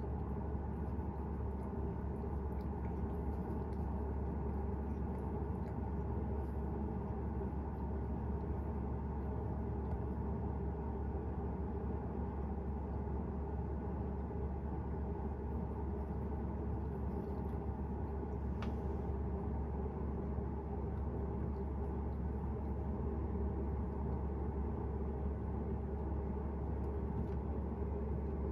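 A steady low rumble of background noise, unchanging throughout, with one faint click about two-thirds of the way through.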